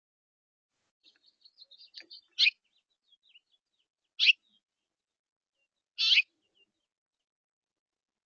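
Small songbirds calling: a run of soft, quick twittering chirps, then loud, sharp single calls repeated about every two seconds.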